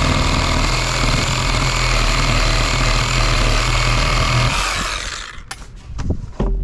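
Cordless reciprocating saw cutting through a PVC pipe, running steadily, then winding down and stopping about four and a half seconds in. A few knocks follow, and wind buffets the microphone near the end.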